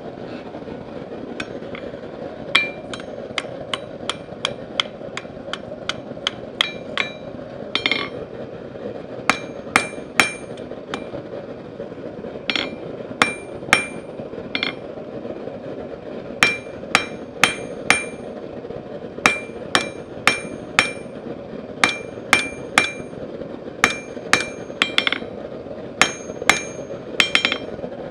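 Blacksmith's hammer striking hot steel on an anvil in runs of about two or three blows a second with short pauses, each blow ringing, over a steady background roar.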